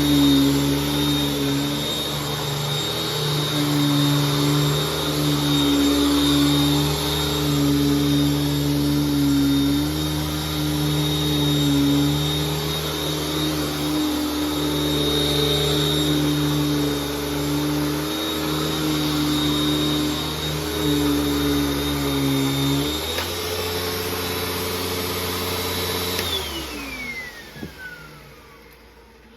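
Hoover Tempo upright vacuum cleaner running, with its hose clogged: a steady motor whine over a low hum that wavers as it is worked. About three quarters of the way in the hum changes, then the machine is switched off and the whine falls in pitch as the motor winds down.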